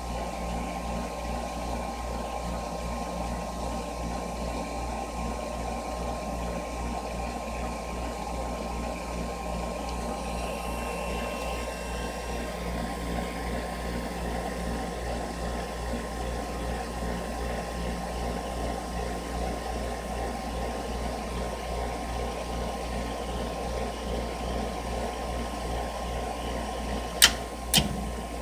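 A furnace running steadily: a constant low rumble with a hiss over it and a faint steady tone. Two sharp clicks come half a second apart near the end.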